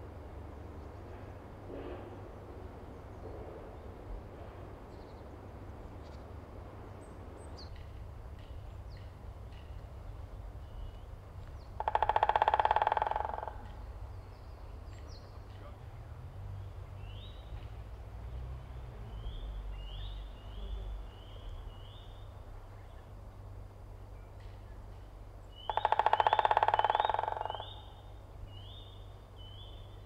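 White-backed woodpecker drumming on resonant wood: two rapid drum rolls about fourteen seconds apart, each lasting about a second and a half, starting sharply and fading toward the end. It is the bird's advertising drumming to attract a female.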